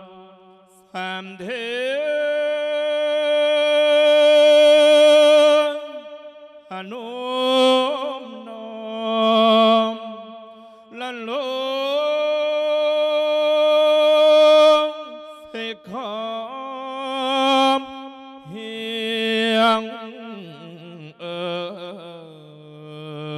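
A Thai Buddhist monk's solo voice singing a lae, the melodic Isan sermon chant, here a lae for sending off the spirit of the dead. It comes in long phrases of held notes with a wavering vibrato and sliding pitch, each phrase broken off by a short breath pause.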